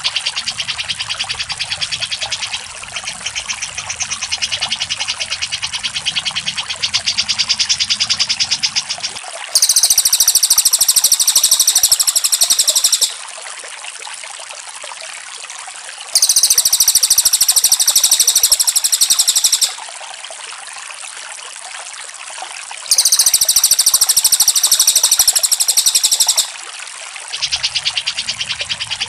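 Recorded bird-tutoring song of cucak jenggot and cililin: quick, evenly repeated high notes. Three times a louder, higher rattling chatter phrase of about three and a half seconds comes in, the same phrase looped.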